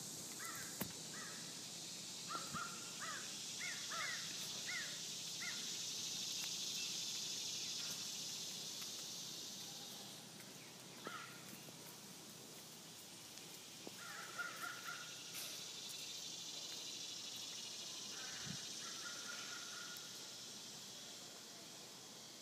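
Crows cawing in several runs of short calls, over a steady high-pitched hiss that swells and fades.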